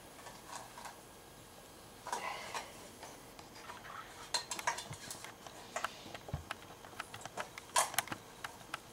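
Aluminum frying pan being bent and rolled up by hand: the metal creaks and gives off a quick run of sharp clicks, starting about three seconds in and growing denser toward the end.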